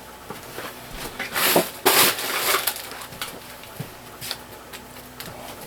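Rustling and handling noises with a few short knocks, loudest about one and a half to two and a half seconds in.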